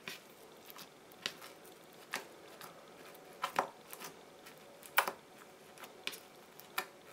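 Blue floam, a glue slime packed with tiny styrofoam beads, being pressed and folded by fingers, giving faint, irregular crackles and clicks spaced about a second apart.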